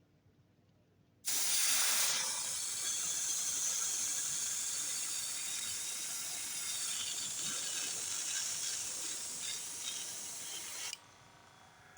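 A steady hiss of rushing air starts sharply about a second in and runs for roughly ten seconds before cutting off suddenly.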